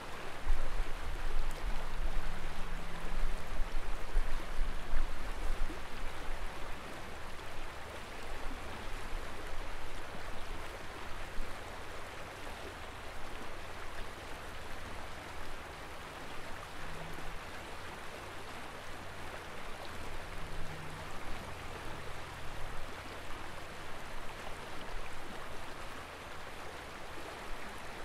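Steady rush of river water running over shallows. Gusts of wind rumble on the microphone, heaviest in the first few seconds.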